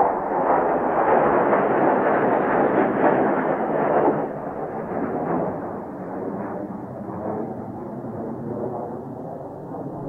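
Mitsubishi F-2's single F110 turbofan engine running with a rough, crackling jet noise as the fighter rolls out on the runway after landing. It is loudest for about the first four seconds, then drops to a lower, steadier level.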